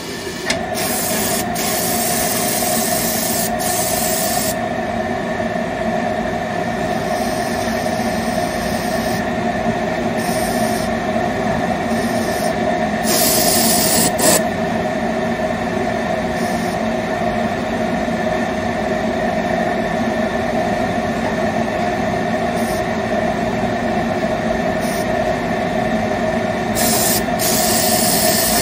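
Stain-removal spotting machine running steadily, with a steam gun hissing in bursts: a long one in the first few seconds, another about halfway and one near the end.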